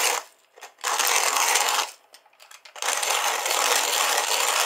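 Kalita hand coffee mill grinding coffee beans as its crank is turned. The coarse crunching rasp comes in stretches of about a second, broken twice by short pauses with small clicks.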